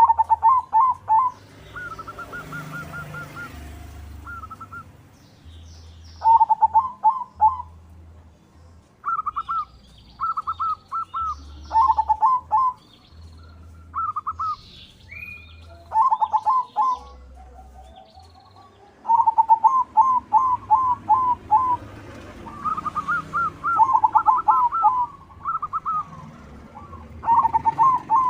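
Zebra doves (perkutut), a white bird among them, cooing. Phrases of several quick rolling notes repeat every second or two, and near the end two slightly different pitches overlap.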